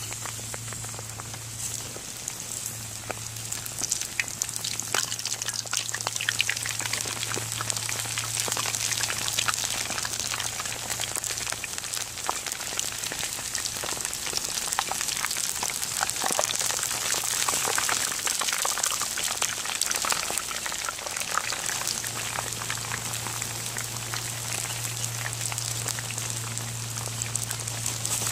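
Catfish deep-frying in hot oil in a cast-iron Dutch oven: a dense crackling sizzle of the bubbling oil, louder through the middle.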